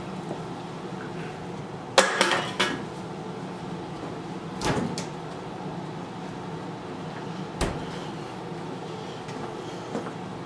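A few knocks and clatters of objects being handled: a quick cluster of knocks about two seconds in, then single knocks near the middle and about three-quarters of the way through, over a steady low hum.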